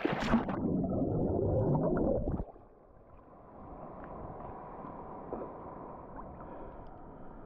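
A swimmer ducks under the sea: a splash, then about two seconds of muffled bubbling and rushing water heard from underwater, which cuts off suddenly as he comes back up. A quieter steady wash of sea water follows.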